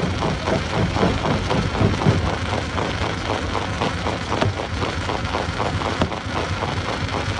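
Stone crusher running, with a continuous dense clatter of rocks knocking and rattling through it over a steady mechanical rumble.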